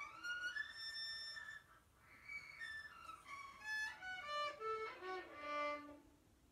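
Violin bowed by a young student, a slow string of single notes with the bow stopping a few times between them, so the line is not smooth.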